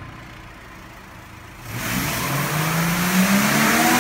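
Subaru Forester's EJ204 flat-four exhaust note through a freshly fitted Fujisubo muffler. A low idle rumble, then about two seconds in the engine is revved up and held high, the exhaust growing much louder and rising in pitch.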